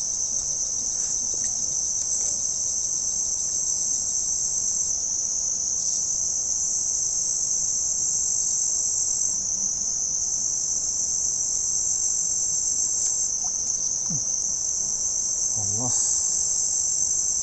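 A chorus of insects shrilling steadily in a continuous high-pitched buzz.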